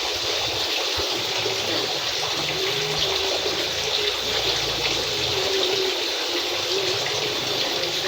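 Flowing water running steadily, a continuous even rush with no breaks.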